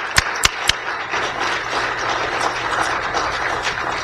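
Audience applauding. In the first second, three loud, evenly spaced claps come from one person clapping close to the microphone.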